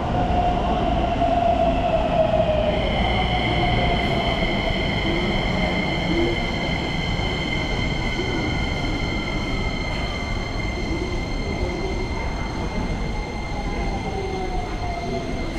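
Electric train running on rails, its motor whine falling slowly in pitch as it slows. About three seconds in, a steady high-pitched whine or squeal sets in and holds to the end.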